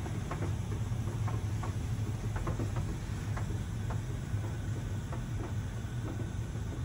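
High-pressure water jets of a HydroSpray Rainmaker touch-free car wash spraying onto the car, heard from inside the cabin: a steady low rumble with scattered light ticks of water striking the glass.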